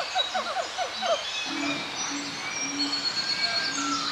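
Forest bird calls. A quick run of short falling chirps comes in the first second. After that a low hooting note repeats about twice a second, over a chorus of high whistles and chirps.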